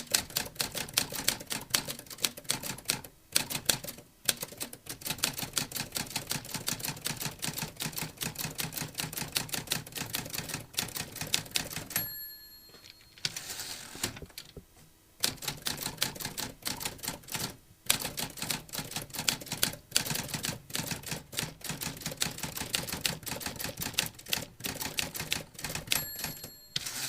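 Typewriter typing: fast runs of key strikes with short pauses between them, and a bell ringing once about twelve seconds in and again near the end.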